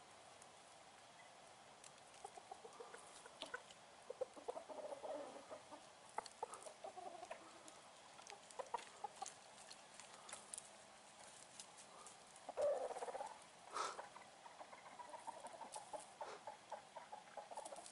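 Chickens clucking softly, short low calls coming on and off, with one louder call about two-thirds of the way through.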